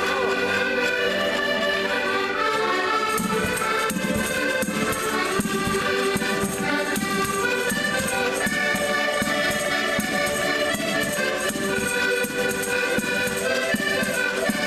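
Ensemble of Portuguese concertinas (diatonic button accordions) playing a traditional folk tune together in sustained chords and melody. A bass drum joins about three seconds in, beating steadily under them.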